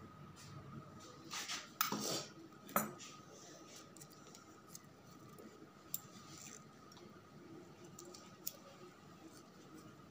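Steel suturing instruments, a needle holder and forceps, clicking and clinking as they are handled while stitching a cut. A few sharp clicks stand out, the loudest about two and three seconds in, with softer ones later.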